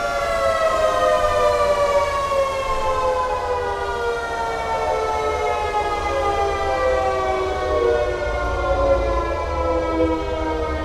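CLM civil-defence air raid siren winding down, its pitch falling slowly and steadily.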